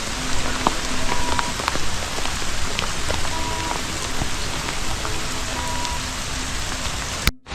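Steady rain falling on the garden, a dense hiss full of individual drop taps. The sound cuts out abruptly for a moment just before the end.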